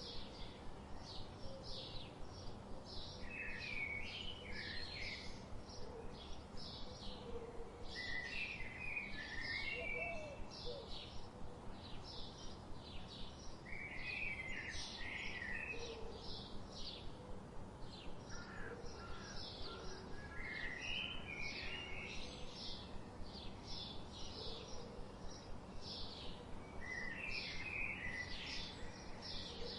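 Birds calling: a steady run of short, high chirps about two a second, with a jumbled warbling phrase about every five or six seconds.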